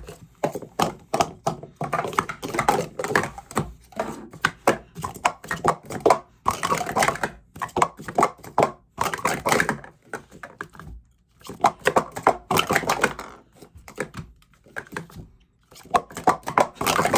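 Plastic Speed Stacks sport-stacking cups clacking rapidly as they are stacked up and down in quick runs, with a couple of short pauses.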